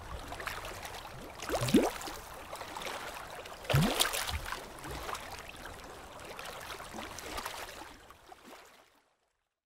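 Water bubbling and gurgling, with a couple of louder rising glugs about 2 and 4 seconds in. It fades out near the end into silence.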